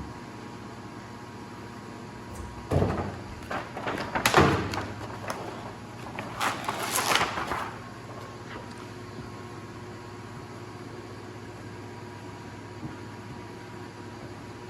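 A plastic squeegee rubbing and scraping over perforated window vinyl on glass: a run of quick strokes between about three and eight seconds in, over a steady background hum.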